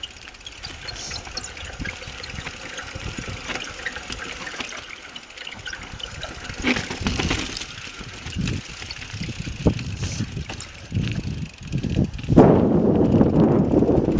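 Mountain bike (Norco Range) riding downhill: tyre noise over dirt and rock, knocks and rattles from the bike over bumps, and wind on the microphone, turning into a louder steady rush about twelve seconds in.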